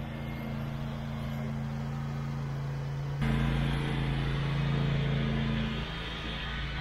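John Deere S130 lawn tractor's V-twin engine running with a steady even hum as the tractor pushes snow with its front plow blade. The sound jumps louder about three seconds in and eases back a little near the end.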